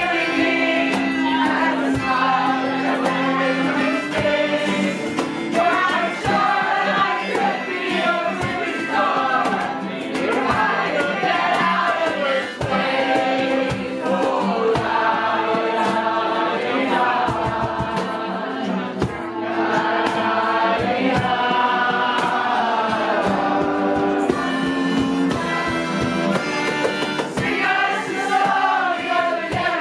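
A roomful of people singing together in chorus, accompanied by acoustic guitars, a cello holding long low notes and a cajón tapping out a steady beat.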